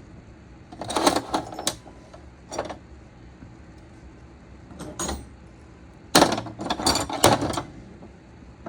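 Metal hand tools being handled and clanking, in several short bursts of clicks and clatter, with the loudest cluster near the end.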